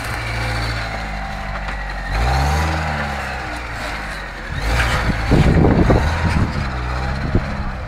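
Opel Frontera 4x4's engine working under load as it crawls up a steep dirt slope, revving up and back down about two seconds in. From about five seconds in, loud irregular rumbling thumps rise over the engine.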